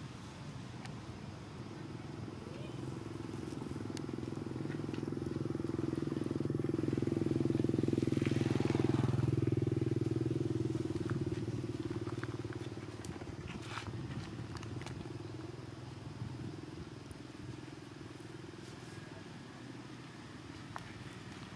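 A motor vehicle's engine passing by. The hum swells over several seconds, is loudest about eight to nine seconds in, drops slightly in pitch as it goes past, and then fades away.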